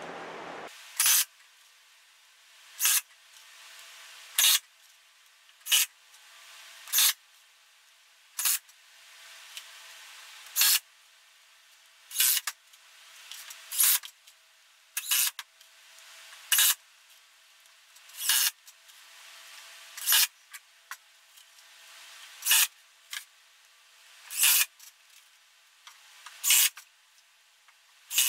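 Cordless drill driving wood screws into a 3/4-inch plywood frame, in short bursts about every second and a half.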